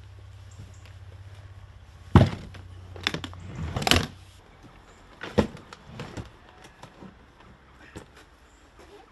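Knocks and thumps of suitcases being handled and loaded into a car boot. The loudest knock comes about two seconds in, with a cluster of bumps and scrapes around four seconds and a few more knocks after. A steady low hum runs under the first half and stops about four seconds in.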